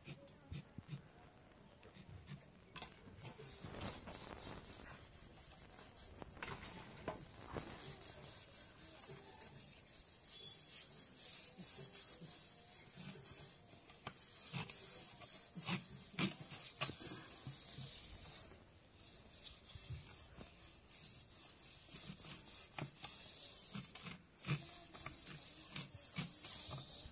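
Repeated rough rubbing and scraping strokes, uneven in pace, with scattered light knocks and brief pauses.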